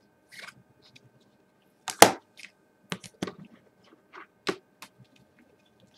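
Irregular sharp clicks and knocks from things being handled on a desk, the loudest about two seconds in and a few smaller ones after.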